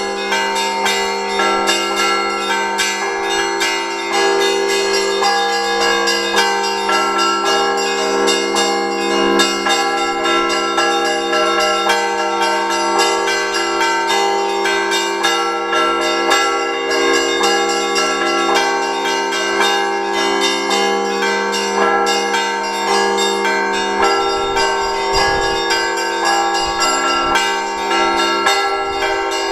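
Russian Orthodox church bells rung by hand in a continuous Sunday peal: quick, dense strokes of the smaller bells over the steady, deeper ring of the larger bells.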